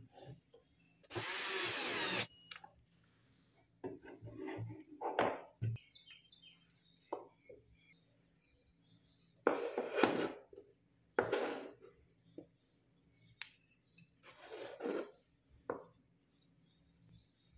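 Wooden sticks and wooden base blocks being handled and fitted together on a hard tabletop: several short scraping and rubbing noises with a few knocks, separated by quiet gaps, the loudest scrape about a second in.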